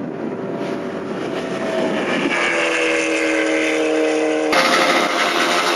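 Vehicle engine and traffic noise on a street. About two seconds in, a steady pitched tone joins it, and the sound changes abruptly near the end at an edit.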